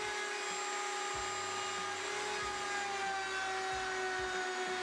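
Table-mounted router running with a steady high whine while a dovetail bit cuts a groove across a plywood jig; the pitch drops slightly about halfway through.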